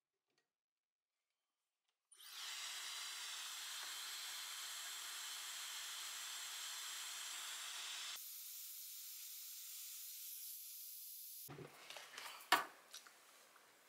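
A steady hiss that starts suddenly about two seconds in, thins out to a higher, quieter hiss about six seconds later, then stops, followed by a few sharp clicks and knocks.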